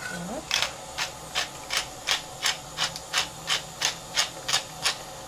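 Wooden pepper mill twisted by hand, grinding peppercorns: short, even grinding strokes about three times a second.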